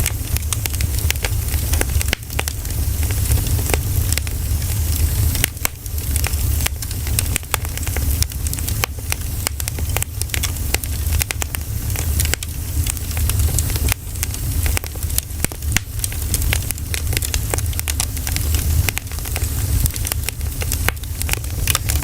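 Pine cones burning in a campfire, crackling and popping with many sharp irregular cracks over a steady low rumble.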